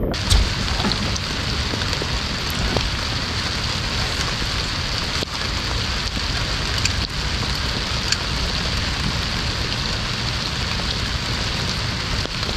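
Steady hiss of rain falling on the boat and the lake surface, with a few sharp ticks of single drops.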